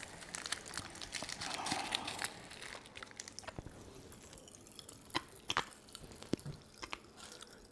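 Faint crinkling of a small plastic packet of popping candy being torn open by hand, then a few scattered small clicks and taps.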